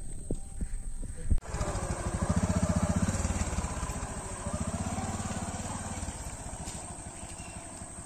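A few light knocks in the first second or so, then a motorcycle engine running at low speed, its pulsing note swelling twice and easing off.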